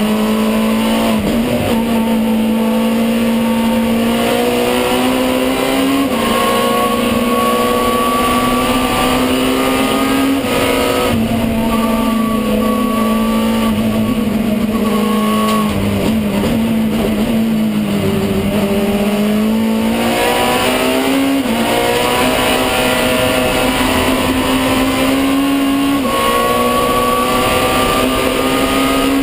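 Alfa Romeo 156 WTCC race car's two-litre four-cylinder engine at high revs, heard from inside the cockpit. The revs climb through the gears with a quick drop at each upshift, about every five seconds. Near the middle they fall away for a couple of seconds, then build again.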